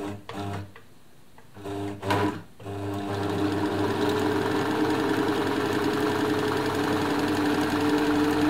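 Elna Lotus SP sewing machine sewing the long narrow zigzag bar of a buttonhole: two short starts of a few stitches, then running steadily with a constant motor hum from about three seconds in.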